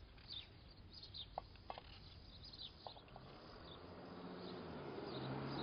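Small birds chirping in short high calls, with a few short clicks, over an outdoor background noise that swells steadily from about halfway through.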